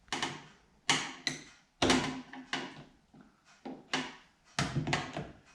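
Hand tools clacking and knocking, about seven sharp separate strikes each with a short ring, as tools are handled and tried on the door's bolts.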